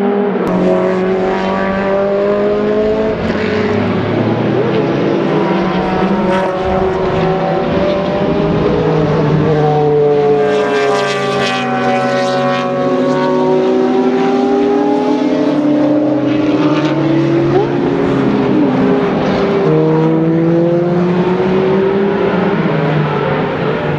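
Race car engines (an Audi R8 LMS, then an Audi DTM car) at racing speed. Their pitch climbs and drops again and again as they accelerate and shift gears, with one loud close pass about halfway through whose pitch rises and then falls as it goes by.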